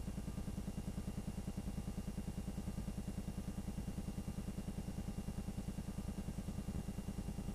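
Film projector running: a steady, fast, even mechanical chatter from the projector's film transport.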